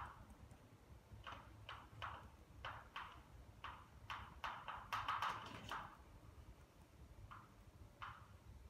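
Chalk tapping and scratching on a blackboard as formulas are written: short, irregular strokes, packed into a quick run about four to six seconds in.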